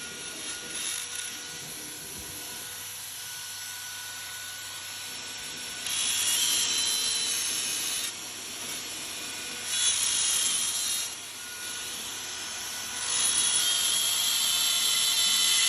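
A woodworking power tool running, with louder stretches of high hiss as it cuts into wood: about six seconds in, again about ten seconds in, and from about thirteen seconds on.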